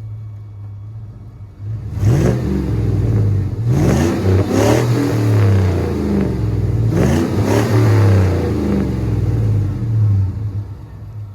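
1999 Chevy Silverado's 5.3L LM7 V8 exhaust through a Cherry Bomb muffler: a low steady rumble, then three quick rises in engine speed about two, four and seven seconds in. The engine stays loud between the rises and eases off near the end.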